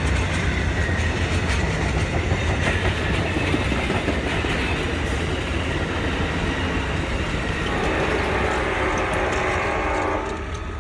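Amtrak passenger train passing: steady rumble and rush of wheels on rail. A held pitched tone joins about eight seconds in, and the sound then fades as the train moves away.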